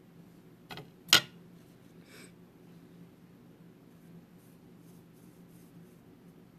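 Small handling noises at close range: two sharp clicks about a second in, the second loud, then a short rustle and faint soft rubbing and scratching, over a steady low hum.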